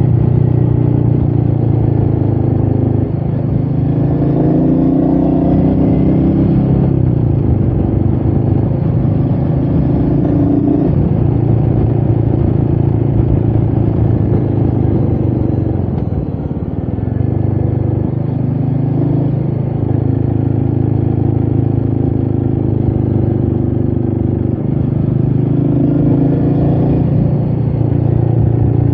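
Royal Enfield Meteor 350's single-cylinder engine running under way, heard from the rider's position with wind noise. The engine note dips and climbs again several times, most deeply about halfway through.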